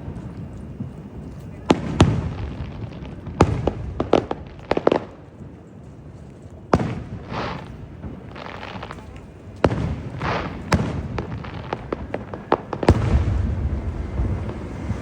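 Aerial fireworks going off: a series of sharp bangs, about ten of them, several in quick succession around four seconds in, some followed by low rumbling booms, with crackling hiss between some of them.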